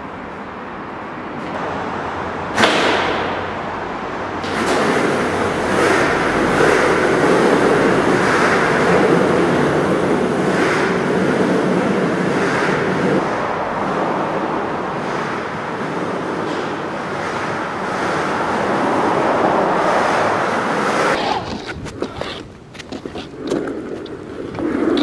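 Steady road traffic noise, loud and even, with a single sharp smack about two and a half seconds in. Near the end the noise drops away, leaving a few scattered knocks.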